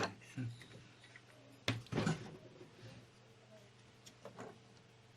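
A sharp click and a knock about a second and a half in, then a few faint ticks near the end, as the parts of a disassembled LCD monitor are handled and set down on the bench.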